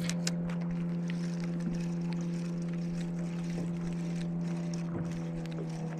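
Steady, unchanging hum of a boat motor running under the boat, with a few faint sharp clicks near the start.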